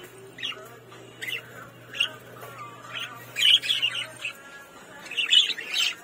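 Budgerigars chirping: many short, high chirps throughout, bunching into quick clusters about three and a half seconds in and again near the end.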